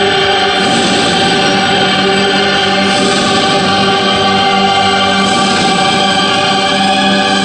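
Choral music with long held chords, played over the ice rink's sound system as figure-skating program music.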